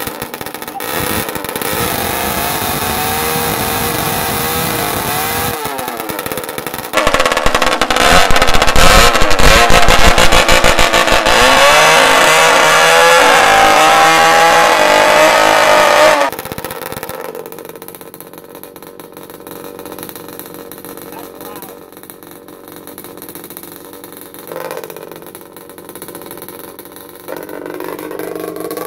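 Two-stroke engine blaring through a vuvuzela fitted to its exhaust, a loud droning tone. It holds a steady pitch at first, gets louder from about seven seconds in as it is revved with the pitch wavering up and down, then drops back to a quieter idle about sixteen seconds in.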